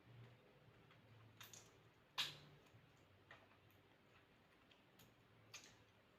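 Near silence with a handful of faint, sharp clicks, the sharpest about two seconds in: small sounds of eating at a table.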